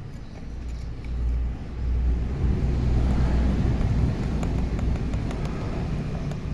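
A passing road vehicle: a low rumble that swells about a second in, is loudest around the middle and then fades. A few faint light ticks sound over it.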